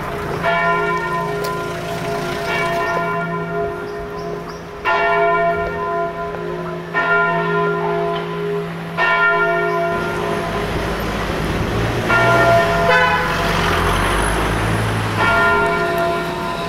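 A bell tolling, struck about every two seconds, seven strokes in all, each ringing on and fading. From about ten seconds in a low rumble joins under it.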